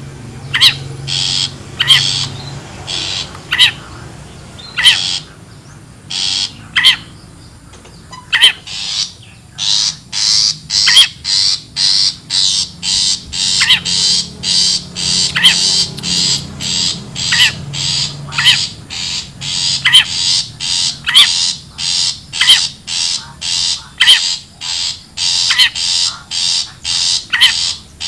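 Long-tailed shrike giving harsh, scratchy scolding calls. The calls come singly and spaced out at first, then from about a third of the way in they run in a rapid, even series of about two to three a second.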